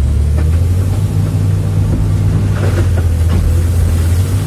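Sany SY365C excavator's diesel engine running steadily under load while limestone boulders drop from the bucket into a steel dump truck bed, with a few knocks and clatters of rock on steel in the second half.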